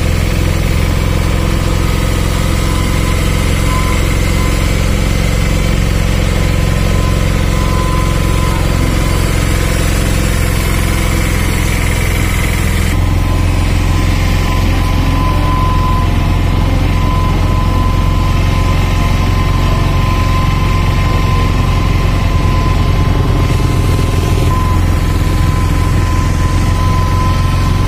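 Vehicle engine running steadily with a low hum, heard from inside the cabin as it drives a winding hill road. The higher hiss drops off about halfway through.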